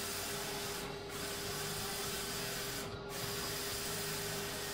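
Roland wide-format inkjet printer printing decals: the print-head carriage sweeping back and forth with a steady whirring hiss over a constant low hum. The hiss drops briefly twice, each time the carriage reverses at the end of a pass, about every two seconds.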